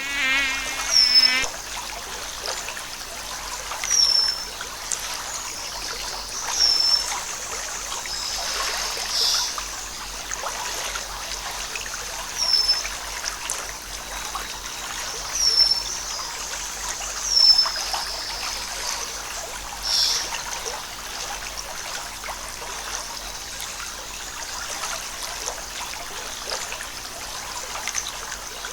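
Forest stream trickling steadily, with a bird repeating a short, high call every two to three seconds, and a brief wavering trill at the start.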